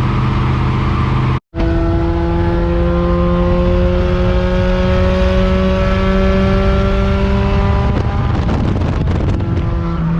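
Car engine running at high revs, its pitch slowly climbing for several seconds, then giving way to a rougher, noisier stretch before settling lower near the end. The sound drops out completely for a moment about a second and a half in.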